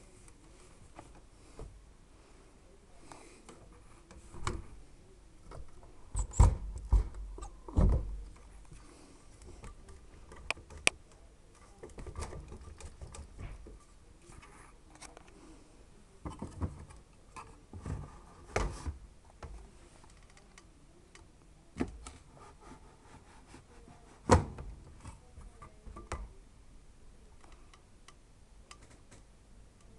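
Irregular knocks, clicks and rattles from an old Hoover W 420 washing machine with broken drum bearings, with a few heavier thumps standing out.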